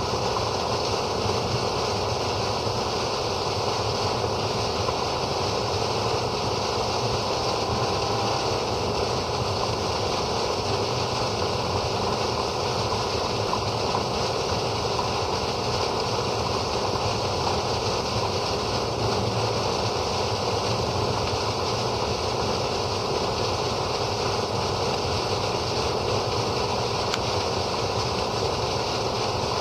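Water gushing steadily from an outlet pipe and splashing onto grassy ground: rust-orange water being flushed out to clear iron bacteria from the line.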